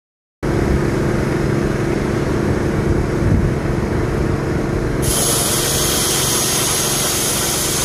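Hand-held grinder running with a steady motor hum; about five seconds in it bites into the steel and a harsh, high hiss of grinding joins the hum.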